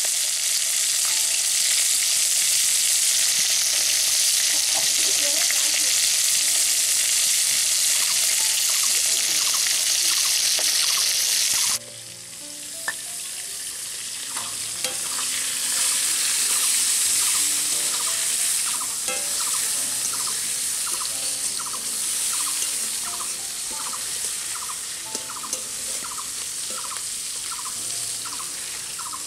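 Bay leaves and whole spices sizzling loudly in hot oil in a metal karai. About twelve seconds in the sizzle cuts off abruptly and gives way to a quieter frying sizzle that swells and fades, with faint background music keeping a steady beat underneath.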